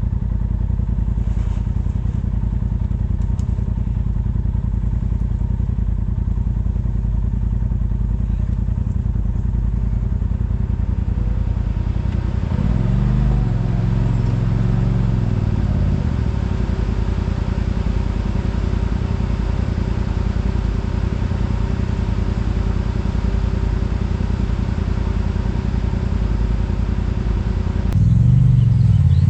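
Side-by-side UTV engine running steadily while under way on a dirt trail. Its pitch rises and falls briefly about halfway through as the throttle changes. Near the end the sound shifts suddenly and gets a little louder.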